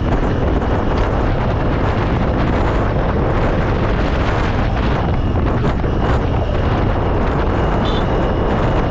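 Wind buffeting an action camera's microphone on a moving Vespa S125 scooter, with the scooter's single-cylinder engine and road noise beneath; a loud, steady rush.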